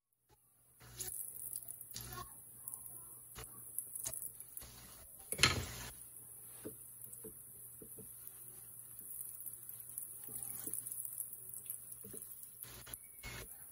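Hot oil sizzling steadily around dough pastries frying in a pan, with scattered light knocks of wooden spatulas against the pan as the pastries are turned. One louder, brief burst of sound about five and a half seconds in.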